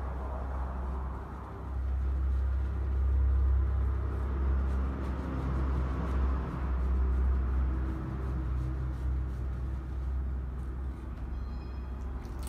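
Steady low rumble of road traffic, swelling and easing.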